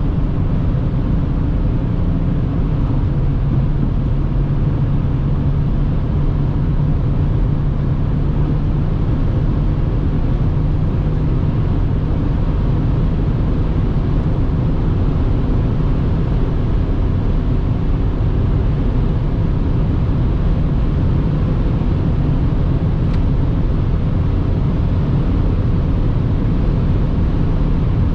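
Inside the cabin of a BMW X5 E70 3.0d straight-six diesel at high autobahn speed, pulling steadily from about 180 to 240 km/h: a steady low engine drone under wind and tyre noise.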